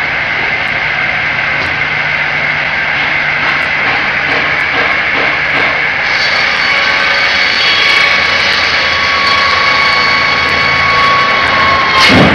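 MJ-1600 log cut-off saw running steadily, its 5.5 kW motor driving a 600 mm circular blade with a steady high whine, as a log is cut into short lengths. A short loud burst comes near the end.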